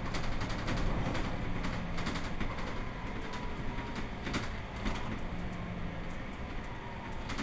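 Mercedes-Benz Citaro C2 city bus engine idling with a steady low hum, with a few sharp clicks scattered through it.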